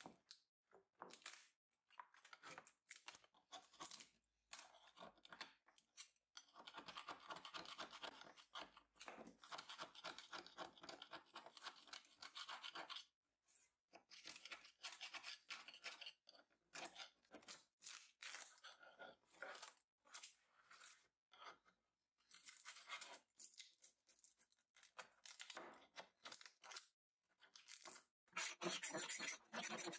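A flat metal blade scraping and prising old veneer off a wooden tabletop: the loose, damaged veneer being lifted away and the old glue scraped off the groundwork underneath. Runs of short scraping strokes broken by brief pauses, busiest near the end.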